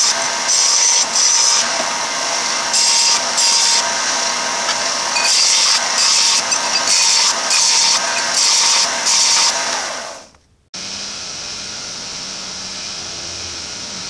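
Small bench belt sander running, with a metal workpiece pressed against the belt in repeated short strokes, each one a louder grinding hiss. About ten seconds in the sound fades out, and a milling machine then runs steadily with a low hum.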